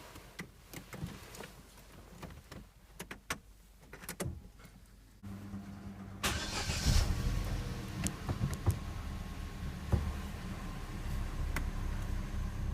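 Small clicks and knocks as a car battery cable is reattached. About five seconds in, a steady low hum comes on. A second later the Opel Vectra C's engine is started with a short burst of cranking and settles into a steady idle.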